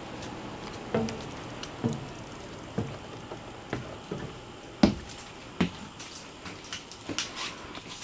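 Footsteps climbing a motorhome's entry steps and walking inside: dull thuds about once a second, then lighter clicks and taps near the end.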